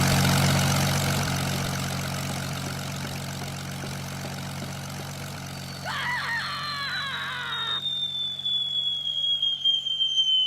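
Propeller airplane engine droning steadily with a rush of wind that fades over the first few seconds. About six seconds in, a cartoon falling-whistle effect begins, one long whistle sliding slowly down in pitch, with a short wobbling sound effect over its start.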